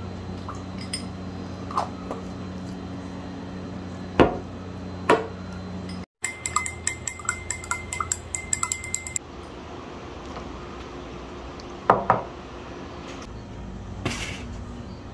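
A spoon stirring a drink in a glass tumbler, clinking quickly against the glass, about five clinks a second for a few seconds. Around it are single sharp knocks of glassware and jars set down on a wooden table, over a steady low hum.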